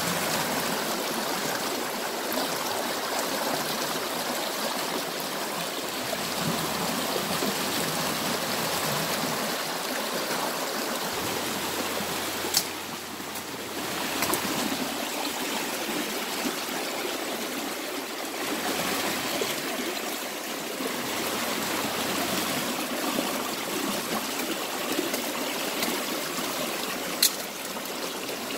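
Fast-flowing, muddy river rushing steadily over rocks and branches. Two single sharp clicks stand out, one about halfway and one near the end.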